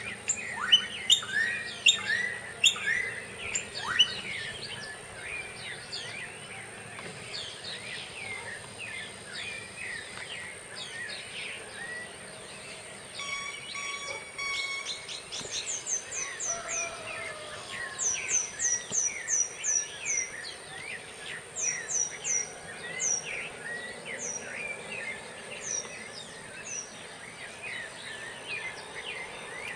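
Dawn chorus of many birds chirping and calling over one another, loudest in the first few seconds. From about halfway through, one bird repeats short runs of quick, high, falling whistles.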